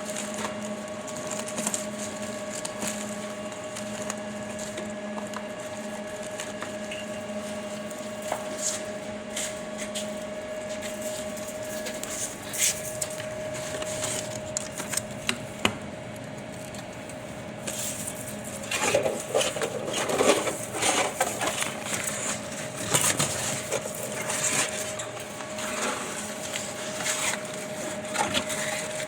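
Scrap baling press running, a steady machine hum with scattered clicks and knocks, turning to a louder stretch of rattling and clattering about two-thirds of the way in.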